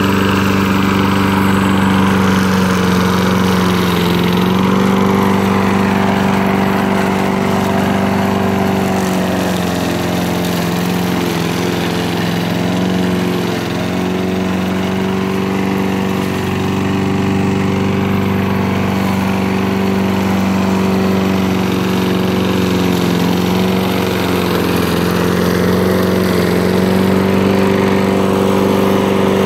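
Gas push lawn mower's small engine running steadily while cutting grass, its pitch dipping slightly now and then.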